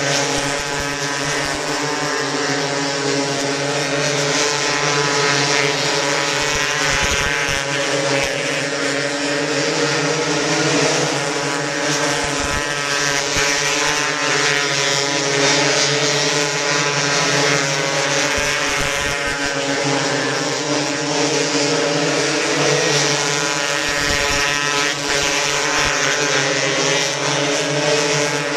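Engines of several 270-class micro sprint cars running steadily together as the cars lap the track, a constant drone of overlapping engine notes with no clear rise or fall.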